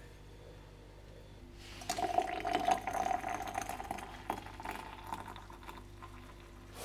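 Water poured from a cast-iron kettle into a glass teapot, starting a little under two seconds in, its pitch rising as the pot fills, then stopping near the end.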